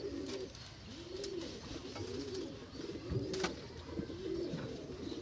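Domestic pigeons cooing over and over, a low arching coo about once a second. There is one sharp click about three and a half seconds in.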